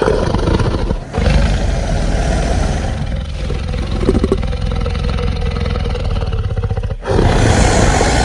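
Creature sound effects for a giant piranha: a harsh, rapidly pulsing growl. It breaks off briefly about a second in and again near seven seconds, as one take gives way to the next.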